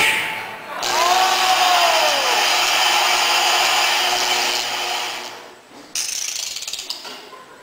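Mechanical sound effects played over the performance's soundtrack: a noisy whirring with a tone that rises and falls, fading out, then rapid ratchet-like clicking that starts suddenly about six seconds in.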